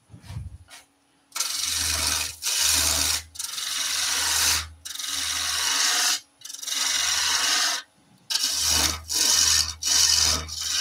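A spindle gouge cutting into a long wooden spindle spinning on a wood lathe, shaping an ogee curve. It is heard as a run of short, rasping cuts about a second each with brief breaks between, starting about a second in, over a faint steady hum.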